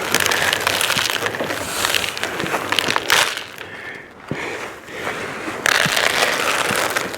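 Shelled corn pouring from a feed bag into a deer feeder's hopper: a steady rush of kernels that eases off for about a second midway, then picks up again.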